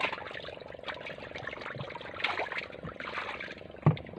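Seawater sloshing and splashing against the side of a small fishing boat, with a faint steady hum underneath and a sharp knock near the end.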